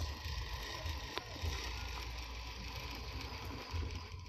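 1/10-scale RC rock crawler's electric motor and gearbox whirring and rattling as it crawls over gravel, under a low uneven rumble, with one sharp click about a second in.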